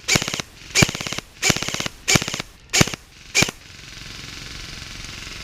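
Airsoft gun firing six short full-auto bursts, each a fast rattle of shots, about two-thirds of a second apart. A steady, fainter hiss follows near the end.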